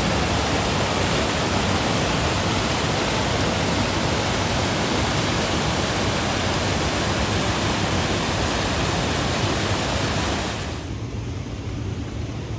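Water rushing and tumbling over boulders in a small waterfall cascade: a steady, dense hiss. About eleven seconds in it turns quieter and duller as the hiss fades.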